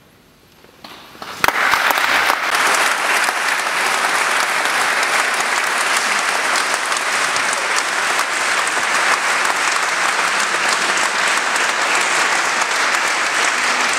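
Concert audience applauding in a stone church: a few scattered claps about a second in, swelling quickly into steady, full applause.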